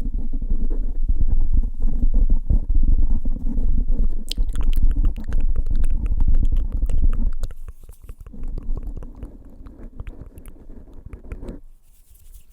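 Fingertips rapidly tapping and drumming ('typing') directly on a microphone, making a dense run of deep, booming thumps. Sharper clicks join in about four seconds in. The tapping turns lighter partway through and stops shortly before the end.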